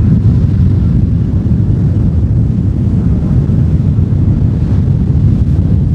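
Wind buffeting the microphone: a steady, loud low rumble with no distinct engine note or bangs.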